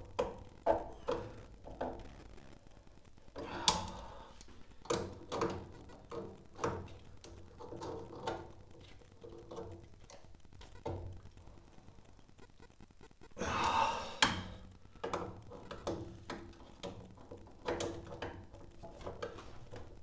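Irregular metal clicks and knocks of a hand tool working the union nuts on a boiler's new circulation pump as they are tightened, with a short noisier burst ending in a sharp click about two-thirds of the way through.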